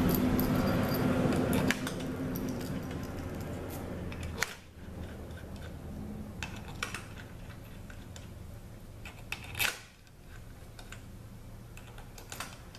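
Small steel bolts clicking and clinking as they are handled and set into the bolt holes of a ZF 5HP24 automatic transmission valve body: a handful of sharp ticks spaced out over several seconds. A steady low hum underneath drops away about four seconds in.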